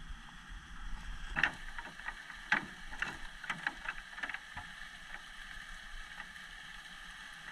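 Irregular knocks and clicks, about a dozen between one and five seconds in, over a steady hiss.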